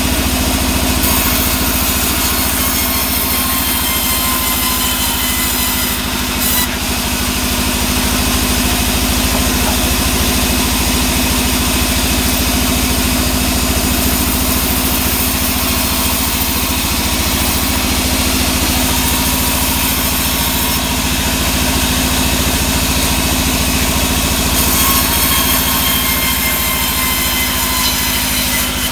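Sawmill band saw running with a steady drone as a sengon plank is fed through the blade.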